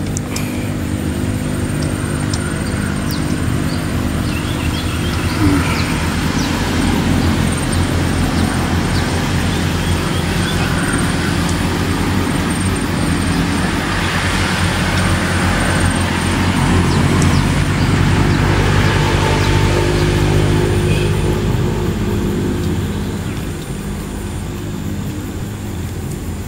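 A motor engine running steadily with a low hum, growing louder toward the middle and easing off a few seconds before the end.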